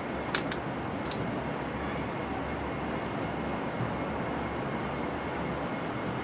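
Steady open-air background noise at a fireworks display: an even low rumble and hiss, with three sharp clicks in the first second or so.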